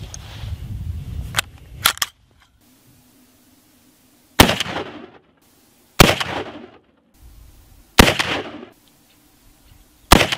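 A cartridge being handled and pressed into the loading gate of a Cimarron Model 71 lever-action rifle, with a couple of sharp metallic clicks, then four heavy .45-70 rifle shots about two seconds apart, each with a short echoing tail.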